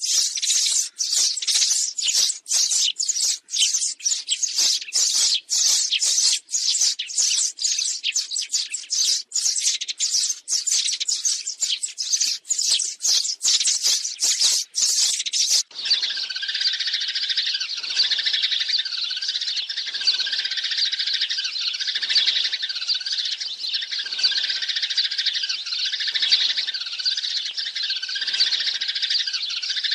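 A flock of sparrows chirping densely, played as a lure call for trapping. About halfway through, the sound switches abruptly to another, duller stretch of chirping that repeats in a pattern about once a second.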